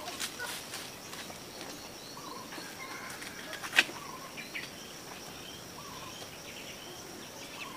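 Birds chirping here and there over a steady high insect drone, with one sharp click a little under four seconds in.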